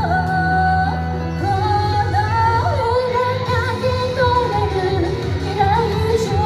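Pop song with a woman singing the melody over a backing track.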